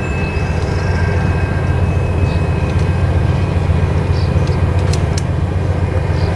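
Steady low rumble of a distant Norfolk Southern freight train, two diesel locomotives hauling loaded coal hoppers, with two sharp clicks about five seconds in.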